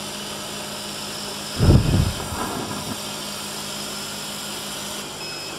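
Laser marking machine running while it engraves a board: a steady hum and hiss, with a brief louder low rumble about a second and a half in.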